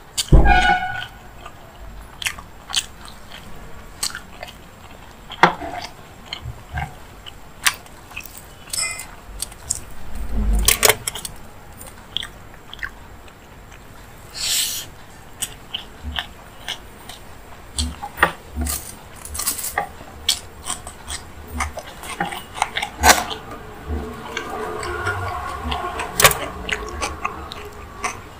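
Close-miked mukbang eating: chewing and wet mouth smacks on hand-eaten rice and paneer curry, with many short, sharp mouth clicks. Near the end, a denser, more continuous sound as raita is poured from a small glass bowl onto the rice.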